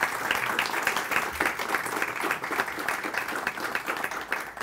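An audience applauding, with many hands clapping steadily.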